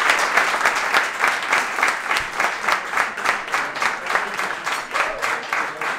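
Comedy club audience applauding, the claps falling into an even rhythm of about four a second.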